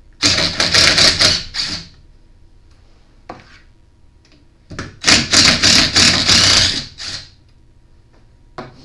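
Cordless impact driver hammering in two bursts of about two seconds each, backing the studs out of a small engine's flywheel hub.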